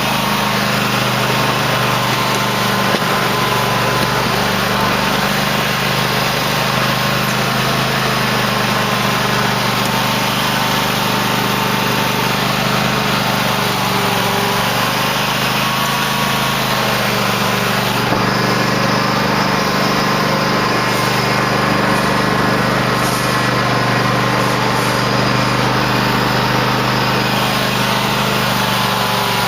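Cub Cadet LT1050 lawn tractor engine running steadily at a constant speed, its pitch wavering slightly now and then.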